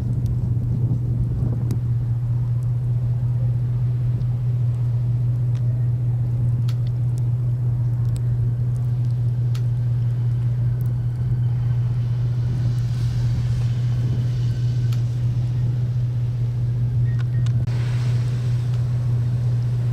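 A vehicle engine running steadily with a low, even drone, with a few light clicks and a brief hiss rising about two thirds of the way through and again near the end.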